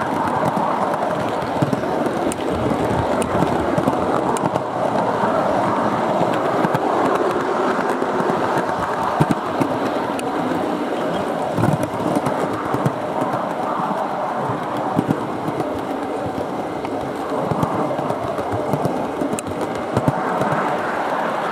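Heljan O gauge Class 37 model diesel locomotive running along the track: a steady rolling rumble of wheels on rail with scattered sharp clicks.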